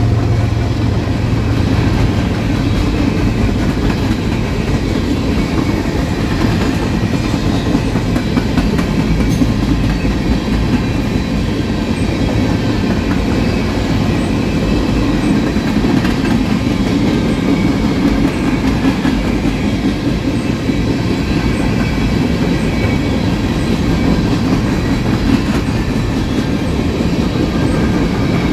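A long freight train of empty covered hopper cars rolling steadily past, with a continuous rumble of steel wheels on rail and a clickety-clack over the rail joints.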